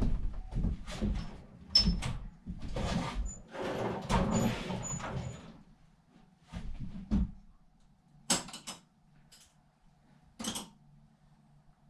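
Hand-handling clatter of bolts, washers and tools: a busy run of knocks and rattling for about the first six seconds, then a few isolated clicks.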